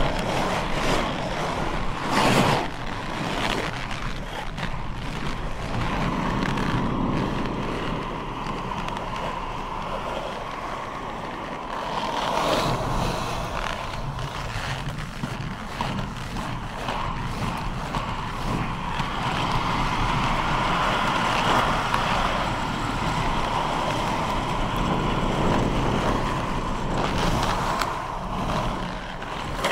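Inline skate wheels rolling in their frame, a steady rolling hum with a few short clicks and knocks from the skating strides, one louder about two seconds in.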